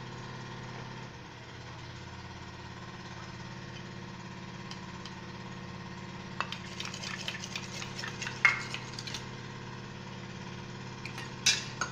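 A steady low machine hum runs throughout. Over it, in the second half, the gravy simmering in a steel kadai gives a patch of small crackles and pops, with a louder pop or click twice.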